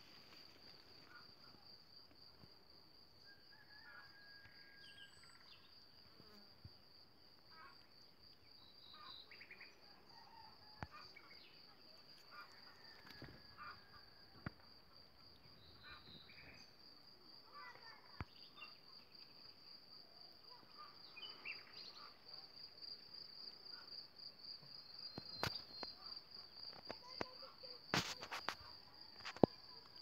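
Insects trilling in a steady, unbroken high-pitched chorus, with scattered short chirps below it and a few sharp clicks and rustles near the end.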